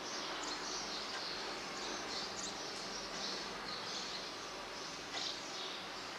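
Background ambience: a steady hiss with faint, irregular high chirping throughout.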